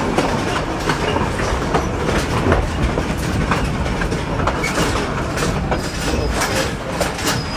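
PeruRail Andean Explorer train running on the rails: a steady low rumble with an irregular clatter of short clicks and knocks from the track and cars.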